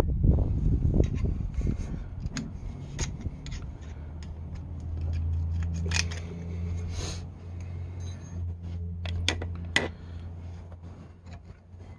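Metal clicks and light scrapes as new brake pads are worked into the caliper bracket by hand. There is a low rumble in the first couple of seconds, and a low steady hum through the middle.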